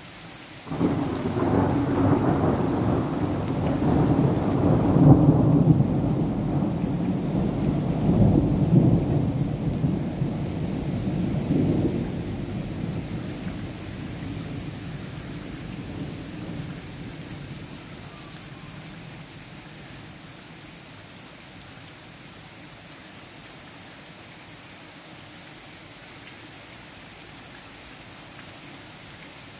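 Thunder cracks about a second in and rumbles on in several loud peals, dying away over the following ten seconds or so. Steady heavy rain falls throughout.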